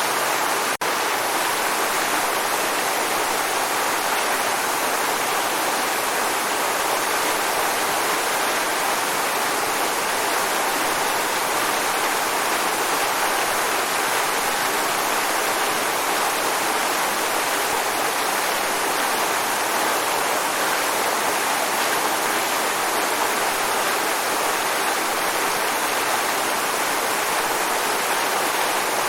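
Waterfall: steady, continuous rushing of falling water, with a momentary dropout a little under a second in.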